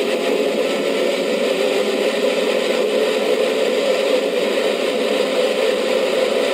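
Steady wind and driving noise of a Toyota Supra cruising at motorway speed, heard from a camera on its rear deck; the sound stays even, with no revving or gear changes.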